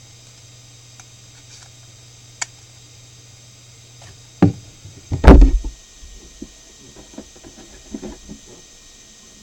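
A faint steady low hum stops about four and a half seconds in. A sharp knock and a heavier thump follow, then a scatter of lighter knocks and clicks, like hard objects being handled on a workbench.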